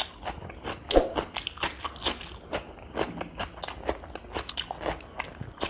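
A person chewing a mouthful of food close to the microphone, in the manner of an eating show: irregular short mouth clicks several times a second, the loudest about a second in.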